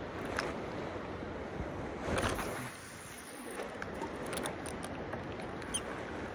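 Fast-flowing river water rushing steadily, with a few light knocks and bumps scattered through.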